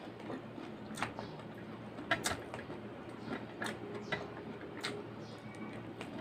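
Quiet eating by hand: scattered soft clicks and taps, about one or two a second, from fingers working rice on a plate and from chewing.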